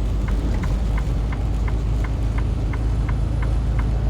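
Semi truck cab on the road: steady low engine and road rumble, with a turn-signal indicator ticking about three times a second.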